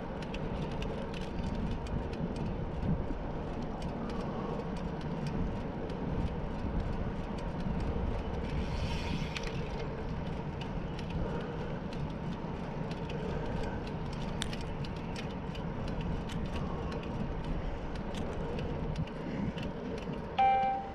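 Bicycle riding on smooth asphalt: steady tyre and wind rumble on a handlebar-mounted camera, with scattered clicks and rattles from the bike. A short bright tone sounds near the end.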